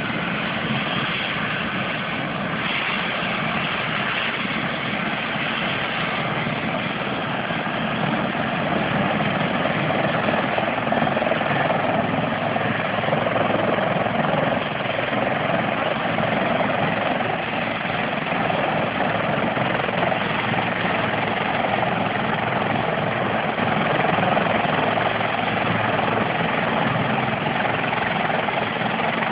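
Bell CH-146 Griffon helicopter running on the ground with its rotors turning, a steady turbine and rotor noise that grows a little louder about eight seconds in.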